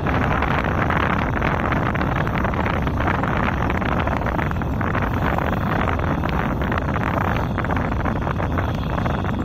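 Steady wind buffeting the microphone, with a distant Kubota M6040SU tractor's diesel engine running under it as it works the muddy field.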